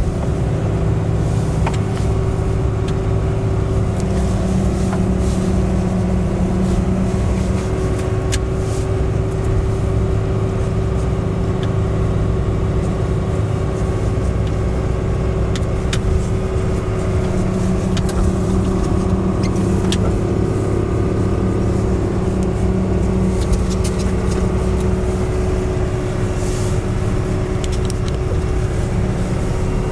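Prinoth snowcat's diesel engine running steadily as the machine drives through snow, heard from inside the cab: a dense low drone with a steady hum over it and a few light clicks now and then.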